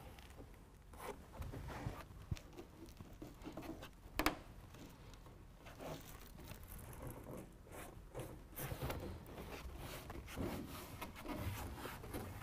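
Faint scraping and rasping as a BedTred Ultra fabric bed liner and its hook-and-loop fastener are pressed and worked into place against a pickup bed wall, with one sharp knock about four seconds in.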